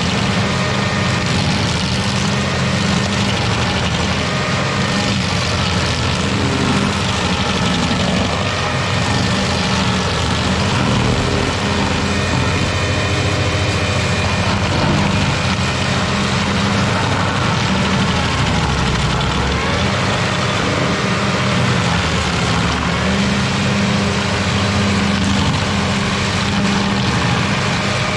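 Carlton 7015 tracked stump grinder running steadily at working speed while its toothed cutter wheel grinds a stump down into chips.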